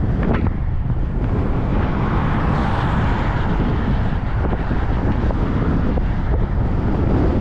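Strong wind buffeting the microphone, with a car passing on the highway about two to three seconds in.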